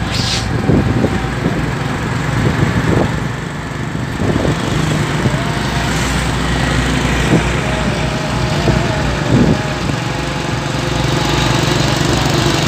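A vehicle engine running steadily on the move, with road noise and a few short knocks or rattles.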